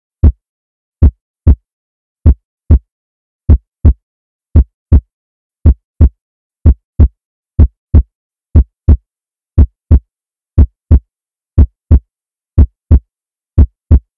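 Heartbeat sound effect: pairs of short, deep thumps (lub-dub) repeating steadily about once a second, with silence between the beats.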